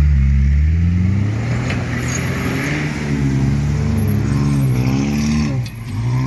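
Off-road vehicle's engine revving hard under load. Its pitch climbs sharply at the start, rises and falls several times, then drops briefly near the end before picking up again.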